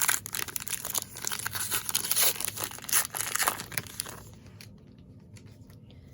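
A baseball card pack wrapper being torn open and crinkled by hand, a dense run of crackling for about four seconds that then stops.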